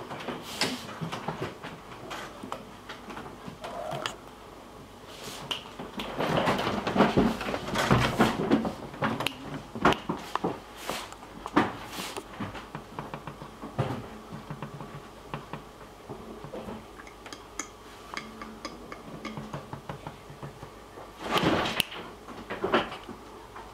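Scattered knocks, clicks and rustling in a small room, over a faint steady hum. They come thickest about six to nine seconds in and again near the end.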